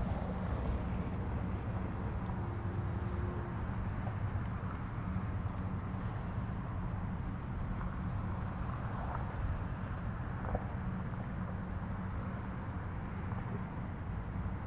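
Steady low rumble of a Honda City's engine and tyres, heard inside the car's cabin while driving.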